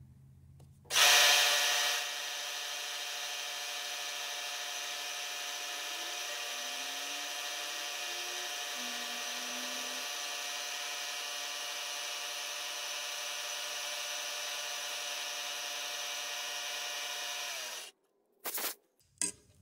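Milling machine taking a cut along the side of a small metal table casting: a steady machining whine with many even overtones, starting with a brief louder burst about a second in and cutting off abruptly near the end.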